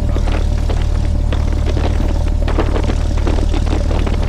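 Cessna 172's piston engine and propeller running steadily at low taxi power, a loud even drone.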